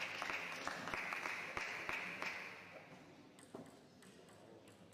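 Scattered hand clapping from spectators after a table tennis rally, fading out after about two and a half seconds. A single light tap of a table tennis ball follows a little past halfway.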